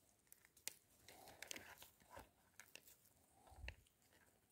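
Near silence, with a few faint scattered clicks and soft rustles and a faint low thud about three and a half seconds in.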